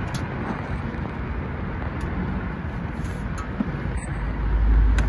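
Steady rushing outdoor background noise, with a deep low rumble swelling in about four seconds in.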